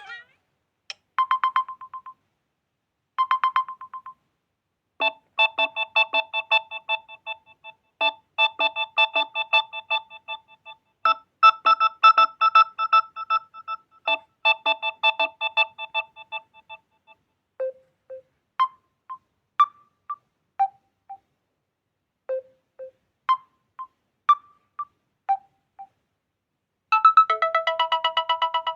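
Samsung Galaxy A06 stock ringtones and notification tones playing in succession: short, clean electronic melodic notes. There are a few separate notes first, then a busy repeating run, then scattered single notes, and a new, fuller tone begins near the end.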